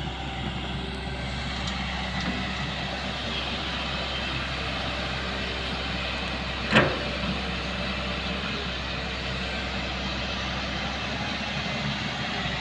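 Hyundai crawler excavator's diesel engine running steadily under working load as the machine digs and swings, with a single sharp knock about two-thirds of the way through.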